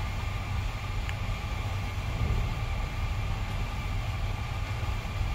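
Steady low drone of the ferry's engines and ventilation heard inside a passenger cabin, with a faint even hum higher up.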